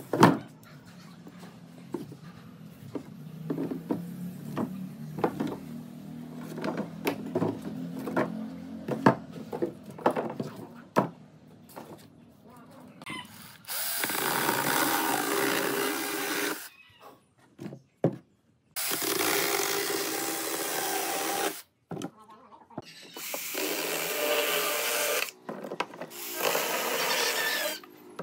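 Dry branches knocking and clattering as they are handled on a wooden workbench. About halfway through, a small handheld cordless power saw starts cutting into a branch, running four times for two to three seconds each with short pauses between.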